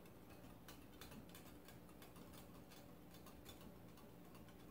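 Near silence with faint, irregular light ticks: a spoon touching the side of a glass mixing bowl as a liquid ice cream base is gently stirred.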